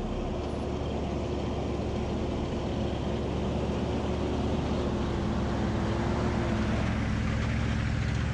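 Jeep engine running steadily, with a steady whine over it that stops near the end.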